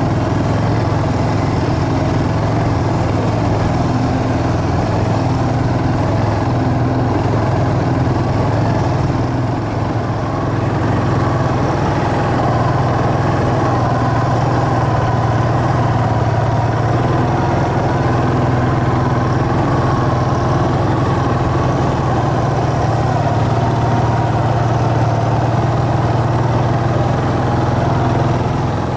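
ATV engine running steadily under way, a continuous drone that eases slightly for a moment about ten seconds in.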